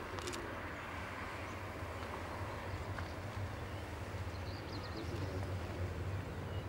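Narrow-gauge tram approaching on its track, a low steady rumble that grows a little louder toward the end as it nears.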